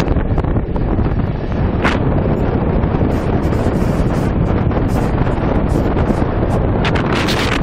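Wind rushing over the microphone at the window of a moving passenger train, over the train's low running rumble.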